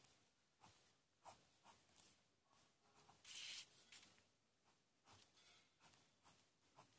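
Faint pen scratching on paper in short drawing strokes, about one or two a second, with one longer, louder stroke about three and a half seconds in.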